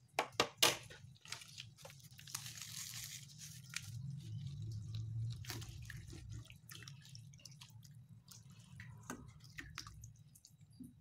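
Silicone spatula stirring and turning sauce-coated beef slices in a wok: wet squishing with scattered clicks and knocks against the pan, the sharpest in the first second, and a brief hiss about two seconds in. A low steady hum runs underneath.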